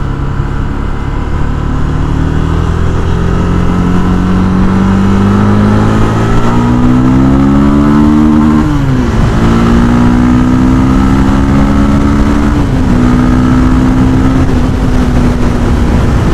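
Honda CB 250 Twister's single-cylinder engine pulling hard under acceleration, its note climbing steadily. The pitch drops suddenly twice, about halfway through and again some four seconds later, as the rider changes up a gear; after that it holds steady at speed.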